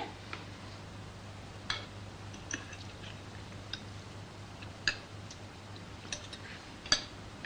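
Cutlery clicking and scraping on dinner plates in scattered light ticks, the sharpest near the end, over a low steady hum.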